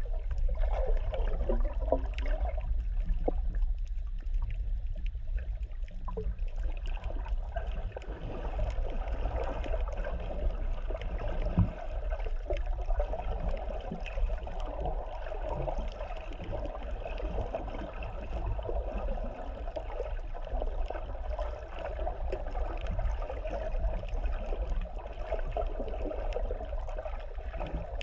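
Muffled underwater sound through a GoPro's sealed waterproof housing: a steady low rumble and water noise as the camera moves through the sea, with scattered faint clicks.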